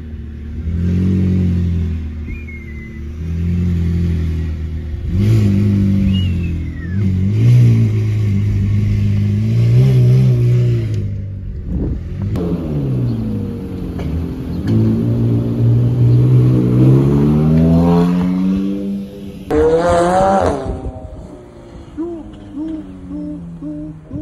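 McLaren 720S twin-turbo V8 with a Fab Speed aftermarket exhaust, revving and pulling away. The revs rise and fall, drop out briefly about halfway, then climb in a long rising rev. A sharp high rev comes near the end before the engine settles lower.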